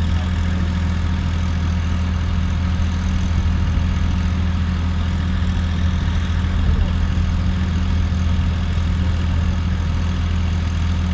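An engine running steadily at idle, a low even hum with no change in speed.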